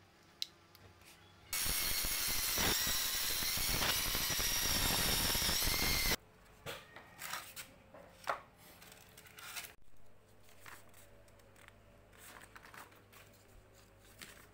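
Handheld circular saw cutting through a plywood sheet for about four and a half seconds, starting and cutting off abruptly. Afterwards come a few light knocks and clicks as the boards are handled.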